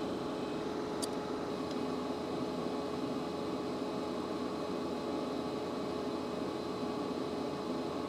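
A steady, fan-like whir with a faint constant hum tone running under it, and a small click about a second in.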